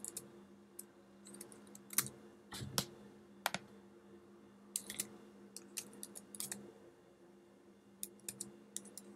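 Faint typing on a computer keyboard: scattered single keystrokes and small clusters at irregular spacing, as a short username and a password are entered. A steady low hum runs underneath.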